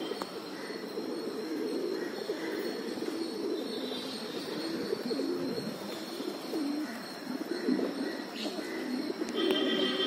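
A flock of rock pigeons cooing, many low coos overlapping continuously.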